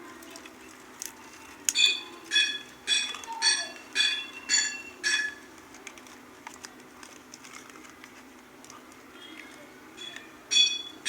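A ringing metal object struck repeatedly, as with a hammer: seven sharp strikes at about two a second, each ringing at the same pitch. After a pause, the strikes start again near the end.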